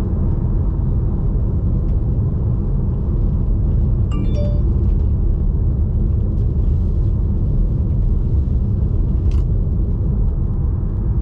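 Steady low rumble of tyre and road noise from a Tesla Model 3 on all-season tyres driving on a snow-covered highway. About four seconds in, a short run of electronic chime tones sounds, and there is a faint click near the end.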